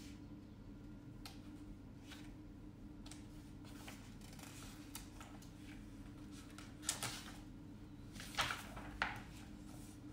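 Pages of a glossy magazine being turned: a few short papery swishes and flicks, the loudest about seven seconds in and twice more near the end, over a steady low hum.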